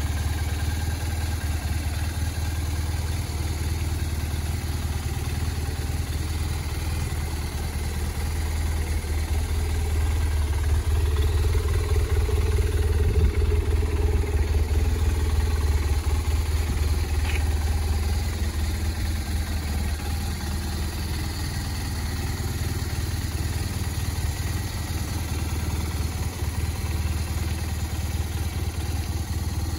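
BMW R1200RT-P police motorcycle's 1200 cc boxer twin idling steadily, louder for a few seconds midway.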